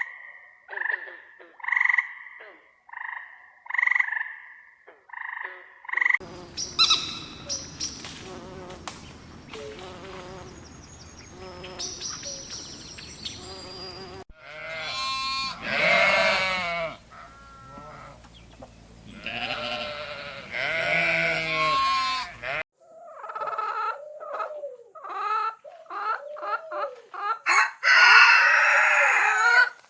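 Poultry sounds edited together in a row of separate clips: a run of short repeated calls, then a rooster crowing twice in long calls, then a quick series of short calls near the end.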